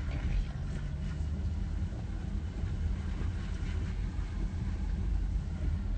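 A car driving on a wet road, heard from inside the cabin: a steady low rumble of tyres and engine.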